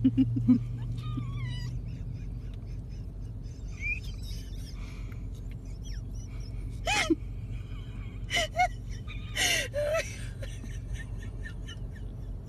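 A small puppy giving a few short, high yips that fall quickly in pitch, mostly in the second half, over a low steady hum.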